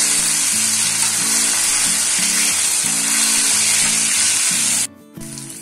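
Gatta (gram-flour dumpling) pieces frying in hot oil in a steel kadai, with a steady, loud sizzle as a slotted spoon turns them. The sizzle cuts off abruptly near the end.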